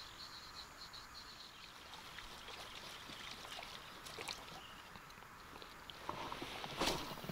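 Faint splashing and gurgling of water as a duckling-type surface lure is worked across a pond, with light scattered ticks. Crickets chirp during the first second or so, and a louder rush of noise comes near the end.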